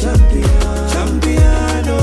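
Afrobeat-style background music, instrumental, with a steady kick-drum beat about twice a second and a held bass line.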